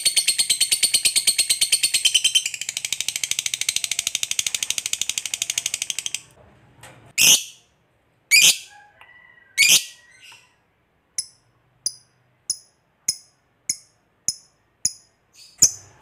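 Lovebird giving a long 'ngekek' chatter, a fast rattling trill of high chirps that stops about six seconds in. Then three loud shrill calls, followed by a steady run of short sharp chirps, almost two a second.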